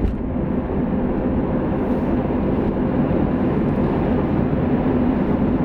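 Steady road and engine noise inside a moving car's cabin, a low even hum.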